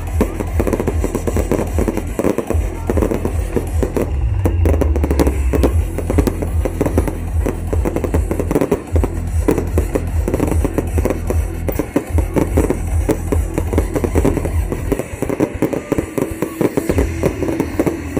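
Fireworks going off in a dense, continuous run of bangs and crackles, over music with a heavy bass.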